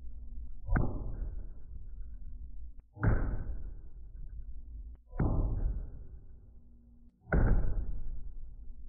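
A small sledgehammer striking a sample of Expandothane fluid-applied seamless roof membrane four times, about two seconds apart, each blow dying away over a second or two. The blows are a test of the membrane's resistance to hail-like impacts.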